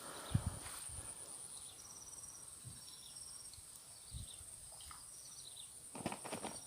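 Insects droning steadily in a high, even hiss, with short high chirping trills repeating over it. A few soft low knocks come in the first half and handling rustles near the end.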